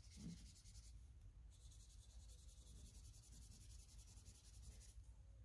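Faint, steady scratching of a felt-tip marker coloring on printer paper, with a short pause about a second in.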